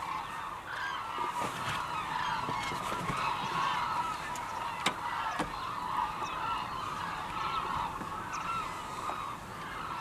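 A steady chorus from a large flock of big birds calling together: many honking calls overlap without a break.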